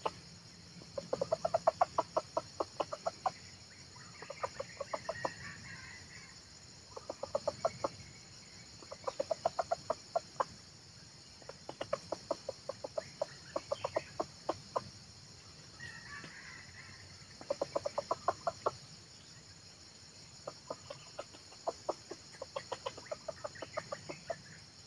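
Red junglefowl clucking in quick runs of about eight clucks a second, each run lasting one to two seconds, repeated with short pauses between, over a steady high hiss.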